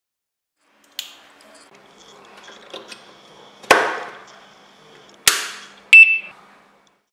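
A plastic power adapter is handled and pushed into a wall socket: a light click, some faint rubbing, then two sharp knocks about a second and a half apart. Near the end comes the loudest sound, a click followed by a short, high ringing beep.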